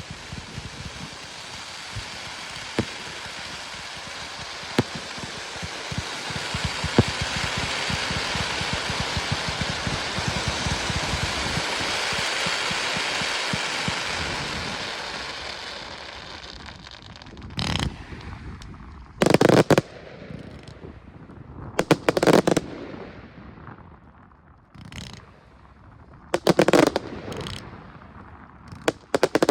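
Fireworks display: a dense crackling that swells and then fades over the first half, with a few sharp cracks in it, followed by a series of loud separate bangs of shells bursting, some in quick pairs.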